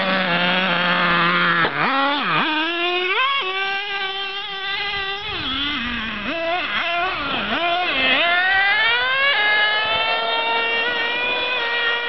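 Radio-controlled truck's small engine idling briefly, then revving up and down again and again as it is driven, its pitch swooping high and low. From about three-quarters of the way through it holds a steady high rev, which falls off at the very end.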